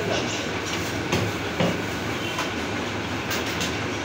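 Meat cleavers chopping goat meat and bone on wooden butcher's blocks: several sharp knocks at uneven intervals, over a steady low hum.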